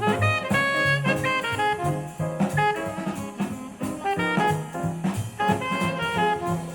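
Jazz played through JBL 4307 studio monitors: a busy melody of quick notes over a stepping bass line and drums.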